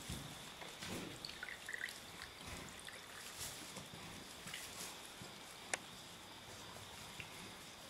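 Faint, soft rustling of straw and birth fluids as a Friesian foal is delivered in its sac, with one sharp click about three-quarters of the way through.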